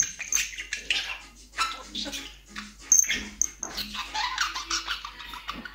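Budgerigar chattering: a quick, unbroken run of chirps, clicks and warbled squeaks that glide up and down in pitch.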